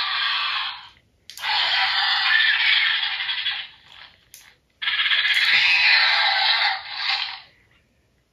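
Jurassic World Sound Strike Pteranodon toy playing its electronic sound effect through its small speaker. One burst ends about a second in, and two more follow, each about two and a half seconds long, with short gaps between them.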